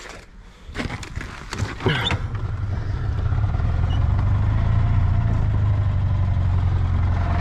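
A few knocks and clunks, then about two seconds in the single-cylinder carbureted gas engine of a 2008 EZ-GO TXT golf cart starts and runs with a steady low hum, getting louder over the next couple of seconds and then holding. The engine is cold after sitting for months in freezing weather and has just been given fresh gas.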